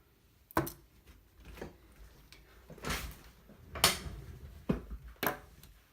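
Irregular clicks and light knocks of a disassembled balisong's metal handle parts and screws being handled and set down, about six in all, the sharpest a little before four seconds in.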